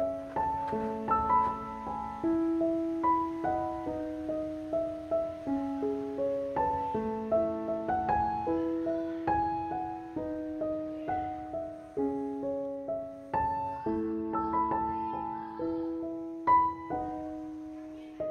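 Background music: solo piano playing a steady stream of single notes and broken chords, each note struck and left to ring and fade.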